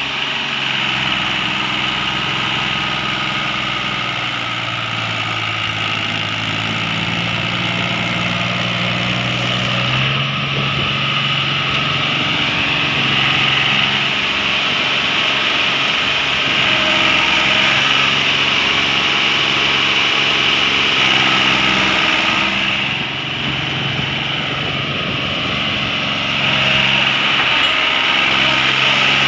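Mahindra tractor's diesel engine running under load, hauling a loaded sugarcane trolley through mud. The engine note rises about ten seconds in and dips briefly near twenty-three seconds.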